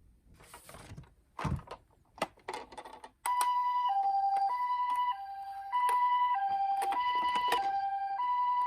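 Toy ambulance minicar's two-tone siren, a high and a low tone alternating about every two-thirds of a second in the Japanese ambulance "pee-po" pattern, starting about three seconds in. Before it come a few faint clicks and a knock, and light clicking runs on under the siren.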